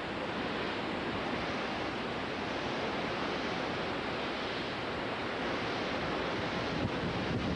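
Hurricane-force wind at about 75 mph, a continuous roaring rush that picks up slightly in a gust near the end.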